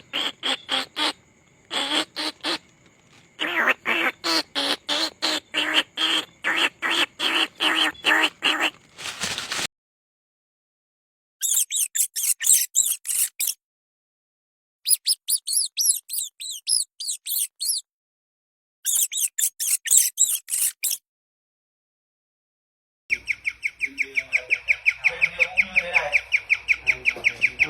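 Mouse squeak sound effects played one after another. First comes a run of sharp squeaks, about three a second, for roughly nine seconds. After a pause there are three short bursts of very high squeaking with silent gaps between them, and near the end a fast high trill of squeaks.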